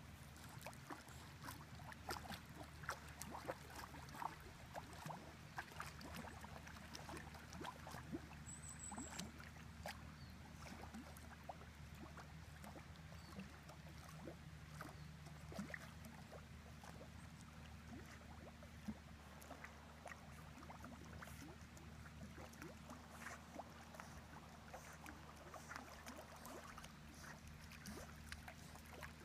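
Faint small splashes and lapping water from a spaniel paddling as it swims, over a steady low hum. A brief high chirp comes about eight seconds in.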